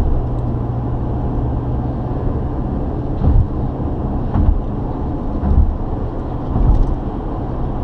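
Steady road and engine noise of a car cruising on an expressway, heard from inside the cabin: a low rumble with a faint engine hum, and four short low thumps about a second apart in the second half.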